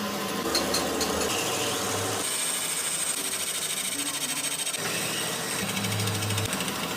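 Power-tool and machine noise: a steady mechanical running sound that shifts abruptly about two seconds in and again near five seconds.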